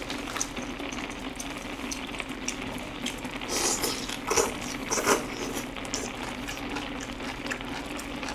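Chicken-and-rice porridge simmering in a large hot pot, a steady low bubbling. A few louder slurping and chewing sounds from eating come about three to five seconds in.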